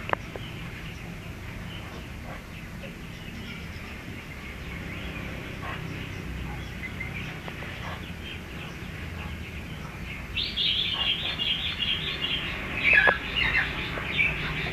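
Birds chirping over a low steady background: scattered high chirps at first, then a busier, louder run of chirps over the last four seconds or so.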